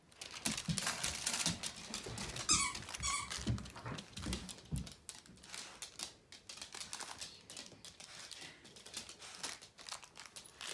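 Pit bull–boxer mix puppies playing rough with plush toys: scuffling and clicking on a wood floor, with two short high squeaks a little over two seconds in.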